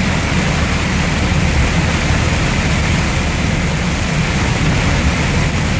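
Scania R440 truck's diesel engine droning steadily, heard inside the cab, under an even hiss of rain and tyres on the wet road.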